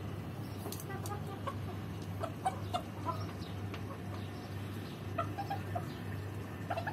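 Chickens clucking: short, scattered clucks from several birds, coming more often after the first couple of seconds, over a steady low hum.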